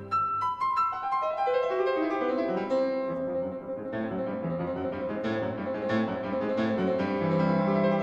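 Background piano music: a falling run of notes at the start, then slower notes ringing into one another.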